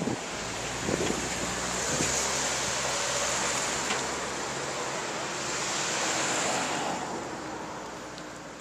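A shuttle bus driving past and pulling away: a low engine hum under a rushing tyre and road noise, which fades over the last second or two.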